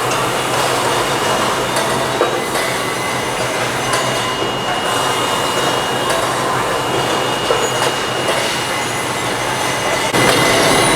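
Automatic brass bar cutting machine running: a steady, dense mechanical din with a constant high whine and a few light knocks, growing louder near the end.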